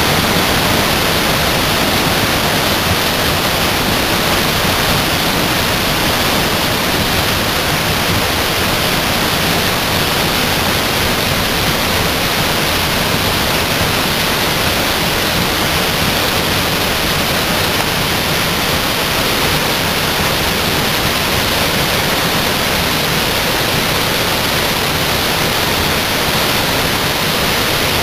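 Waterfall in full spate after heavy rain, a loud steady rush of falling water.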